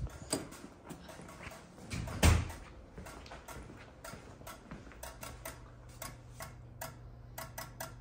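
Scattered sharp clicks and ticks, coming quicker over the last few seconds, with a single low thump about two seconds in. A steady low hum comes in about five seconds in.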